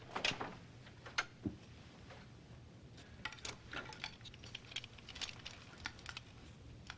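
Clothes hangers clicking and fabric rustling as garments are pulled from a wardrobe: faint scattered small clicks, thickest from about three to six seconds in.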